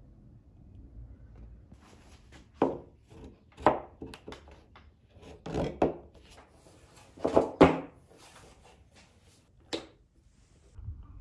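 Hard plastic knocks and clunks, about eight in clusters with the loudest near the middle, as a Futures fin is pushed into a surfboard fin box and a plastic protractor is set against it.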